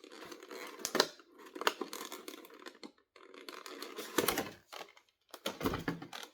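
Action figure packaging being opened by hand: cardboard and plastic rustling and crinkling, broken by sharp irregular clicks and snaps.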